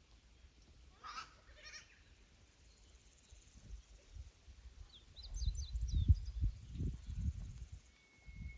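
Goats bleating twice, briefly, about a second in, with a few high bird chirps near the middle. From about five seconds in, a louder low rumbling noise on the microphone takes over.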